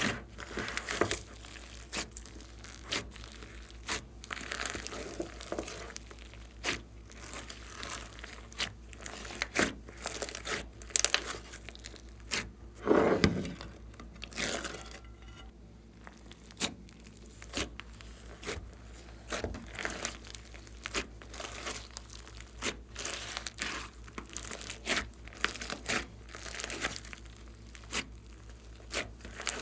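Glossy slime being kneaded and stretched by hand, giving irregular wet clicks, pops and crackles as trapped air bursts, with one louder, longer squelch partway through.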